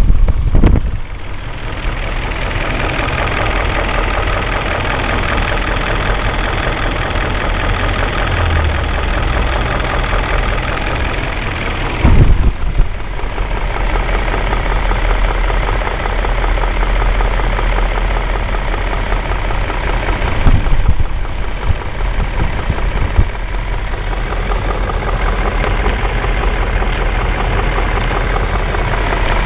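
BMW M5 E39's 4.9-litre S62 V8 idling at standstill with a rattle that the owner puts down to the VANOS variable valve timing. The sound gets briefly louder twice, at about twelve and twenty-one seconds in.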